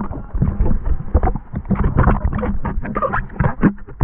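Shallow shore-break water sloshing and rushing around a GoPro Hero 5 held at the waterline, with irregular knocks and rubs from the camera body being moved and handled.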